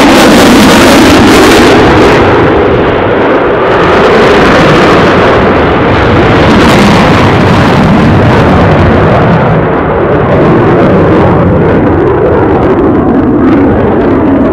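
Eurofighter Typhoon FGR4's twin Eurojet EJ200 turbofans running with afterburners lit: a loud, continuous jet roar that swells and eases a little as the fighter manoeuvres overhead.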